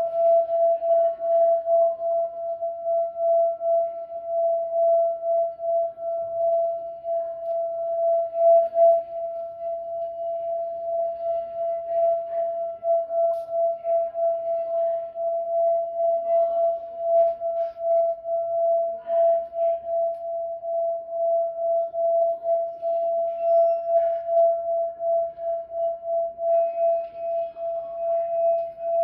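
Tibetan singing bowl sounding one sustained tone with a fainter higher overtone, kept going without dying away and wavering in a fast, regular pulse.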